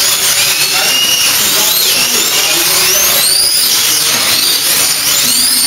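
Several electric slot car motors whining together at racing speed, the pitches rising and falling again and again as the cars speed up and slow down around the track.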